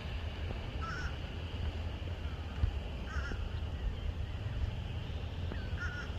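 A bird giving three short calls, roughly two to three seconds apart, over a steady low rumble of wind.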